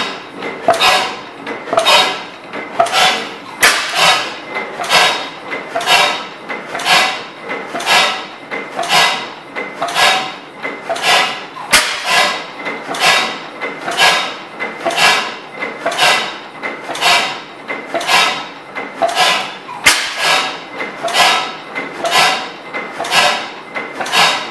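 10 HP Schleicher Schumm slide-valve stationary gas engine running steadily on propane, its valve gear and mechanism giving a regular rhythm of sharp mechanical clacks.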